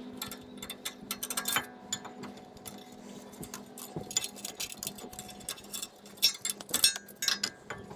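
Brake caliper being fitted back over the rotor: irregular light metallic clicks and clinks of the caliper and pads against the rotor and mount, over a faint steady hum.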